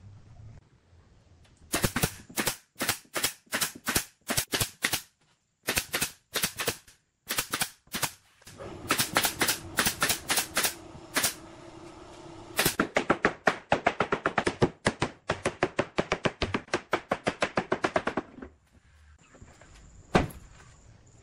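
Nails being driven into wooden planks: a series of sharp shots, a few a second at first, then quicker runs of about five a second, with a low steady hum under the middle run. One louder knock near the end.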